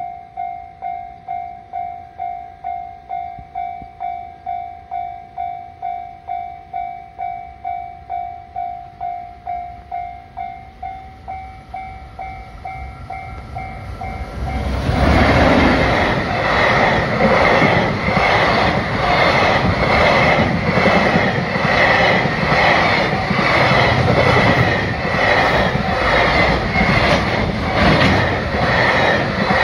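Japanese level-crossing warning bell ringing about twice a second. About halfway through, a freight train reaches the crossing: an electric locomotive followed by Koki container flatcars. Its wheels clack rhythmically over the rail joints, louder than the bell, which keeps ringing underneath.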